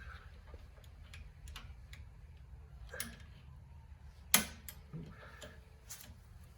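Scattered small clicks and light knocks, with one sharp, louder click a little past the middle.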